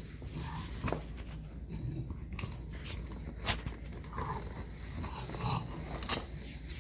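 Neapolitan Mastiff puppy rummaging and mouthing at a fabric bag: scattered sharp clicks and rustles, with a few short soft sounds from the puppy between them.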